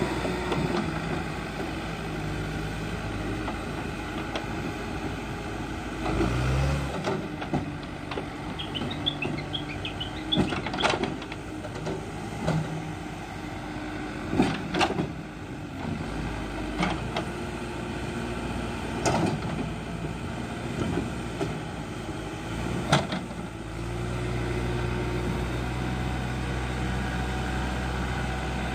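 Backhoe loader's diesel engine running, with several sharp knocks and clanks from the loader bucket and its linkage as it works the dirt. The engine runs louder and steadier for the last few seconds as the bucket and backhoe are pushed down to lift the machine.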